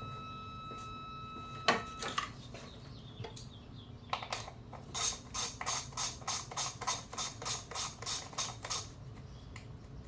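A steady high tone cuts off with a sharp click a little under two seconds in. Then a ratchet wrench clicks in an even run of about fourteen strokes, roughly three a second, as fasteners are worked to remove the ignition coil from the Saab 9-3 2.0T engine.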